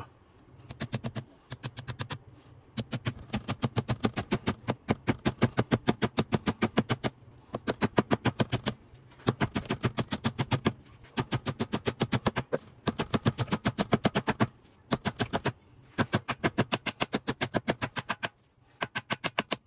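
Rapid, evenly spaced metal clicks from hand-tool work on a transfer case, about eight a second, coming in bursts of one to two seconds with short pauses between them.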